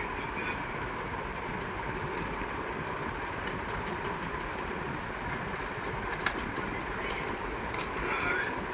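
Steady rumbling background noise with scattered small sharp clicks and taps.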